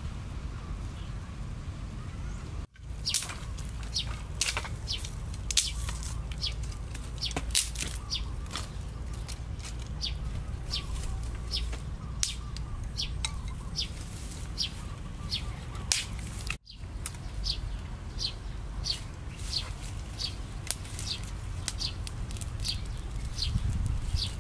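Outdoor ambience of birds chirping, many short high calls in quick succession over a low steady rumble, breaking off abruptly twice.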